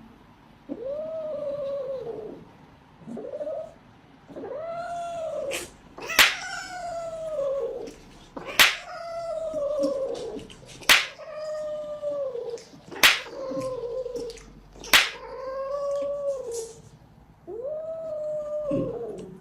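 A pet animal calling over and over: about ten drawn-out calls, each rising then falling in pitch. From about six seconds in, a sharp click or smack comes every two seconds or so.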